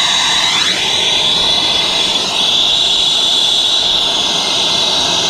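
Brazing torch burning with a steady, loud hiss while a joint on a copper refrigerant line set is brazed, its tone sweeping slowly up and down.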